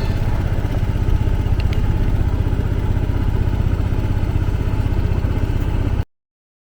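Honda Lead 110 scooter's single-cylinder four-stroke engine idling steadily, cutting off abruptly about six seconds in.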